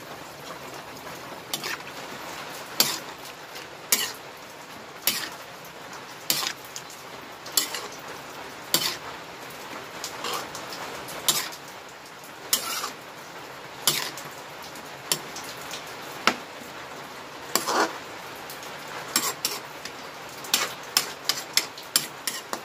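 Metal spatula scraping and knocking against a wok as napa cabbage is turned over in simmering sauce, about one stroke a second, over a steady low hiss. The strokes come quicker near the end.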